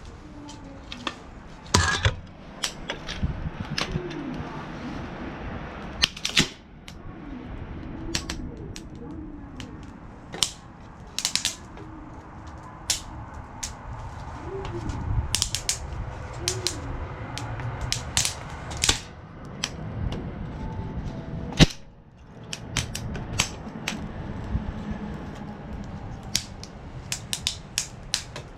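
Parts of a stainless steel fire pit being handled, making irregular sharp clicks and clacks, several close together at a time.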